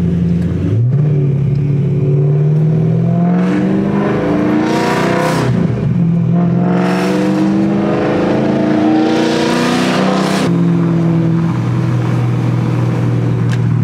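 Car engine heard from inside an open-top convertible, pulling through the gears: twice its pitch climbs steadily and drops back at a gear change, about six and ten seconds in. Between and after the shifts it runs at a steady pitch.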